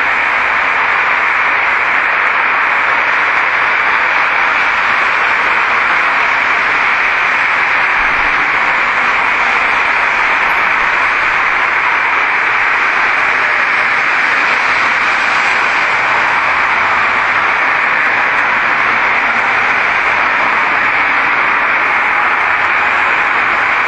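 A loud, steady hiss of noise that stays the same throughout, with no voices or distinct events in it.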